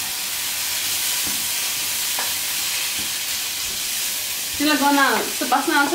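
Kinema curry frying in a pan, a steady sizzling hiss.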